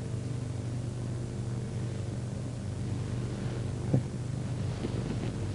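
Room tone: a steady low hum with a hiss, and a faint tap about four seconds in.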